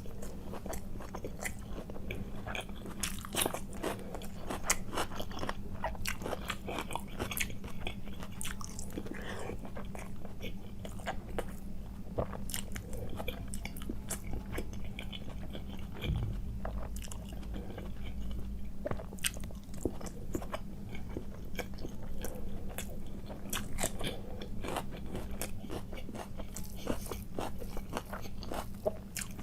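Close-miked eating sounds: irregular biting, crunching and chewing, with wet mouth clicks, over a steady low hum.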